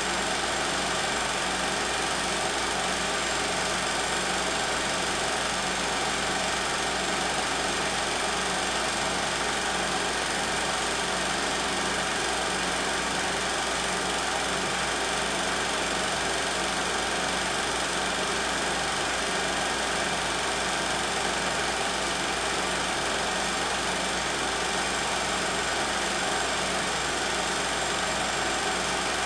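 16 mm film projector running: a steady mechanical whir and clatter that does not change.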